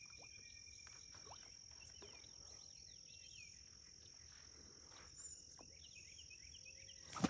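Insects trilling in one steady high pitch, with scattered short bird chirps. Near the end comes a single sudden loud sound.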